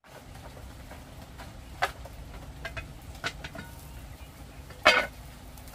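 Open wood cooking fire crackling: a few sharp scattered pops over a low steady background, with one louder knock about five seconds in.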